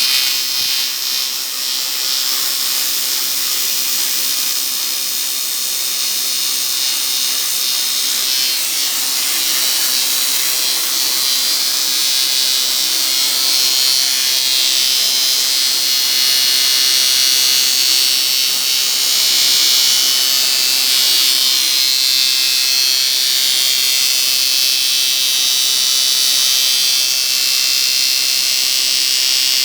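TIG welding arc on aluminium, a steady high buzzing hiss that grows slightly louder after the first several seconds.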